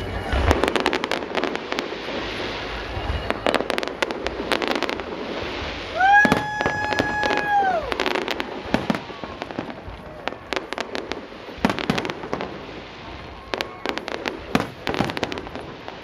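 Fireworks show: a dense run of sharp bangs and crackles as aerial shells burst. About six seconds in, a steady whistle-like tone sounds for about two seconds, the loudest moment.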